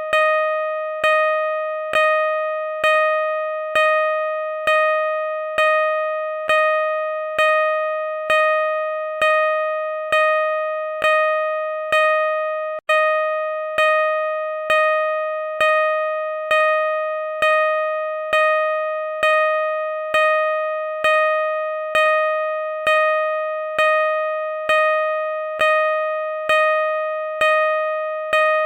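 Car parking sensor beeping steadily at a slow rate of about one beep a second, each beep a single mid-pitched tone that starts sharply and fades before the next. There is a momentary break in the beeping about thirteen seconds in.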